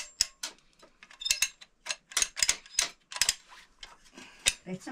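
Irregular sharp clicks and light clinks, about a dozen over a few seconds, some with a brief ring, like hard objects such as metal or glass tapping together.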